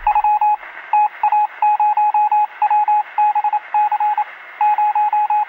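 Morse code: a single-pitch beep keyed on and off in short and longer tones, over a steady hiss of radio static.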